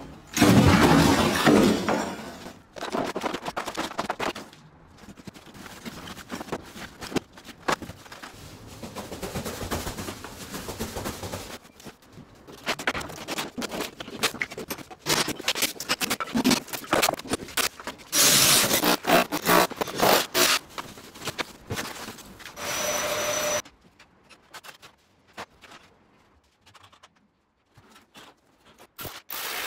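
Drywall demolition: plasterboard breaking in with a loud crash just after the start, then a string of knocks, scrapes and clatters as broken board and old wooden framing are pulled out and dragged across the floor.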